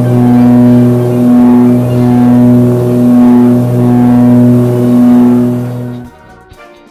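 Propeller aircraft in flight, heard from inside the cabin: a loud, steady drone from the propeller and engine, swelling and dipping about once a second. It fades out about six seconds in.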